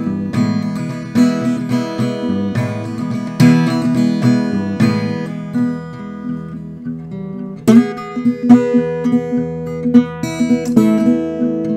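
Acoustic guitar playing a slow blues, plucked notes and strummed chords ringing on. It goes quieter in the middle, then louder picked notes come back about eight seconds in.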